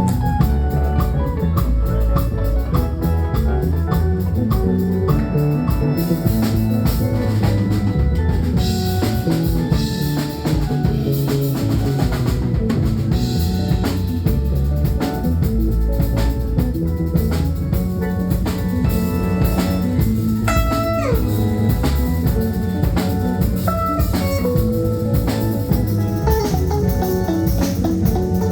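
Live band playing a song at a sound check, with a drum kit keeping a steady beat under pitched instruments; the cymbals come in more strongly about six seconds in.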